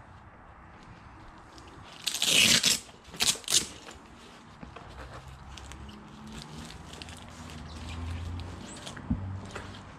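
Nylon straps and fabric of a soft motorcycle saddlebag being handled: a loud tearing rip about two seconds in, then two shorter rips a second later, with quieter rustling around them.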